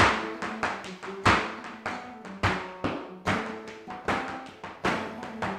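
Flamenco footwork: the dancer's hard-soled shoes stamp and tap the floor, with loud strikes about once a second and lighter taps between. Under them a flamenco guitar plays sustained notes.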